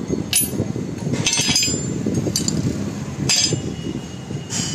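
Steel pieces clinking against a steel worktable, about five sharp metallic clinks, over a steady low rumble.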